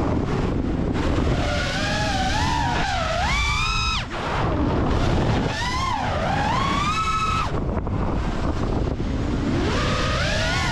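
FPV quadcopter's four Ethix Stout 2306 1750 kv brushless motors whining as the throttle is worked: the pitch climbs in several glides, holds high, then drops away sharply at throttle chops about four seconds in and again near seven and a half seconds, before climbing again near the end. A rough rush of prop wash and wind on the onboard microphone runs under the whine.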